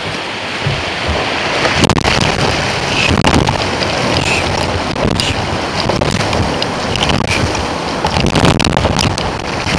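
Water rushing and splashing as a kayak runs over a shallow weir and on through rippling current, with wind buffeting the microphone and a few short, sharp splashes.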